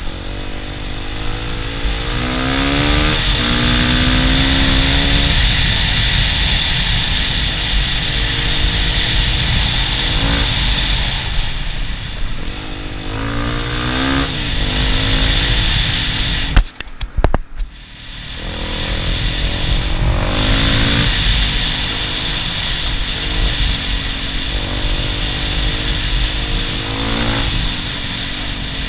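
Motorcycle engine running under way on a dirt trail, its pitch rising several times as the rider accelerates. There is a sharp knock about two-thirds of the way through.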